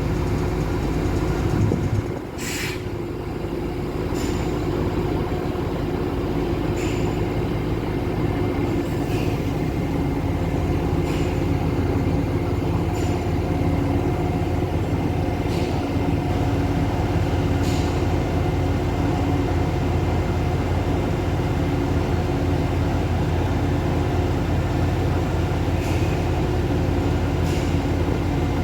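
Diesel engine of a Sri Lanka Railways Class S8 diesel multiple unit running steadily, with short hisses of air every couple of seconds.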